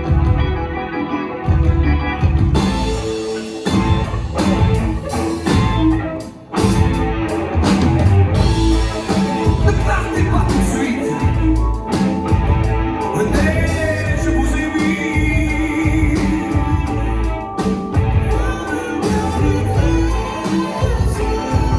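Progressive rock song playing: a full band with singing.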